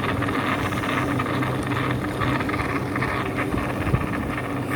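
Meenakshi 'Cutie Pie' 2-litre tabletop wet grinder running, its grinding stone turning in the drum through a wet, partly ground adai dosa batter: a steady motor hum. A single small knock about four seconds in.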